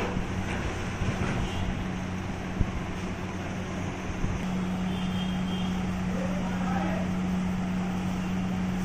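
Steady low hum over an even background hiss, growing a little stronger about halfway through, with a faint click near the middle.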